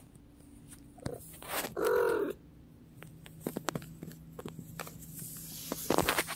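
Domestic cat giving one short meow about two seconds in, its pitch rising and falling. Light clicks follow, then a louder rustle near the end.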